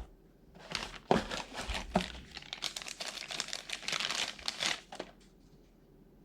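Plastic packaging crinkling and crackling as it is handled and unwrapped, a dense run of crackles lasting about four seconds that stops about five seconds in.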